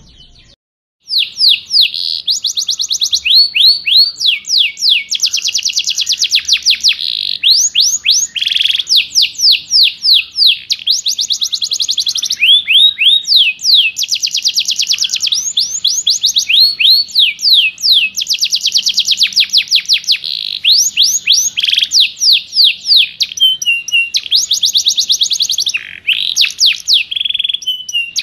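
Recorded songbird song of dense, rough 'tembakan' (shot) phrases: long runs of rapid, steeply falling high whistled notes with short breaks between them, after a silence of about a second at the start.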